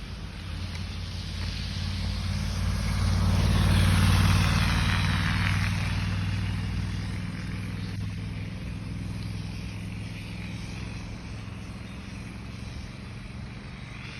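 A motor vehicle passing by: engine hum and tyre hiss grow louder to a peak about four seconds in, then fade away slowly.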